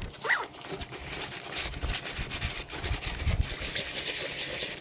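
Water sloshing and splashing irregularly as a soaked backpack is pushed about and lifted in a sink of water.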